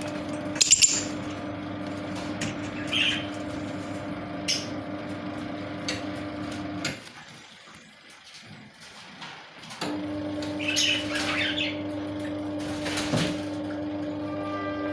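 Lovebirds moving about, with wing flutters, sharp clicks and a couple of brief high chirps, over a steady electrical hum. The hum cuts out for about three seconds midway and then comes back.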